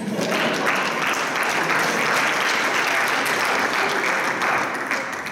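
Audience applauding: a roomful of people clapping, starting abruptly and dying down near the end.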